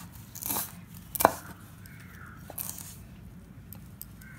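Kitchen knife chopping green chillies on a wooden cutting board: a few irregular knocks of the blade striking the board, the loudest about a second in, then lighter taps.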